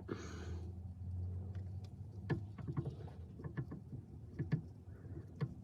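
Scattered light clicks and knocks of hands and tools working under the car during a gearbox oil drain, with a faint low hum in the first second or so.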